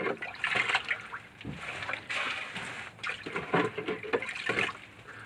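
Bilge water being scooped out with a plastic jug cut in half as a bailing can: irregular splashing and sloshing strokes, with sharp clicks among them.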